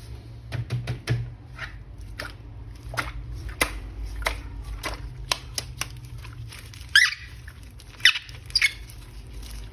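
Plastic toy packaging and action figure being handled: scattered small clicks and taps, with short squeaks about seven and eight seconds in.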